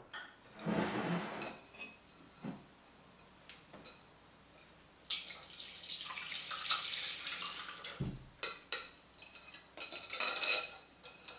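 Liquid poured from a glass mixing bowl into a ceramic baking dish, a steady pour lasting about three seconds, then a wire whisk scraping and clinking against the glass bowl to get the last of it out.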